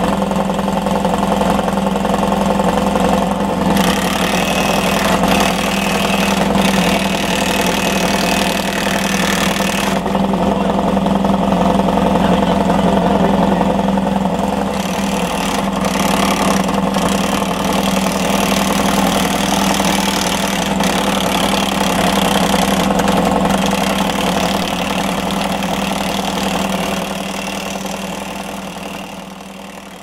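An engine running steadily at an even idle, with a hissing noise that comes in a few seconds in and drops away again; the whole sound fades out near the end.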